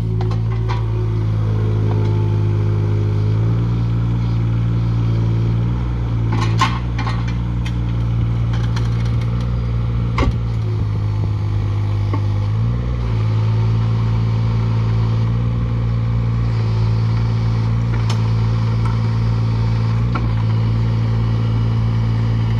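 Takeuchi TB016 mini excavator's diesel engine running steadily under hydraulic work, its note dipping and recovering a few times as the arm, bucket and dozer blade take load. Two sharp metallic clunks come in the middle.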